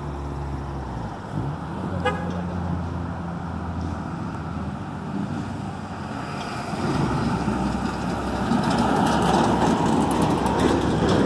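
Road traffic passing a railroad grade crossing: a truck's engine running low and steady as it goes by, then louder traffic noise building from about seven seconds in as more vehicles pass close.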